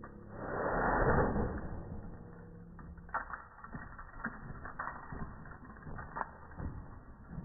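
Slowed-down sound of a Bouvier des Flandres dog moving: a drawn-out rush of noise about a second in, then a run of irregular, deep creaking clicks.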